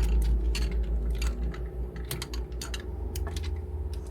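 Hard plastic parts of a Bandai 12-inch Deluxe Wing Gundam figure clicking and tapping irregularly as they are handled and fitted together, over a steady low rumble.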